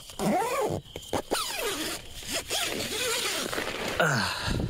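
Tent door zipper being pulled in several quick strokes.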